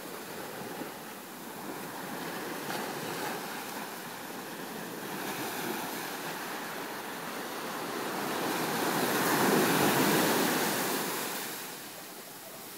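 Small waves breaking and washing up onto a sandy shore, the surf swelling to its loudest about ten seconds in and then receding.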